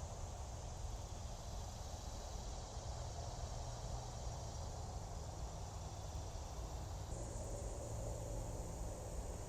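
Steady background noise: a low hum with a faint, even high-pitched hiss over it, growing slightly brighter about seven seconds in, with no clicks or knocks.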